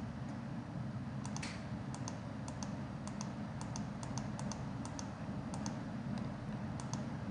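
Computer mouse button clicked over and over, about two clicks a second, each a quick press-and-release double tick, over a steady low hum.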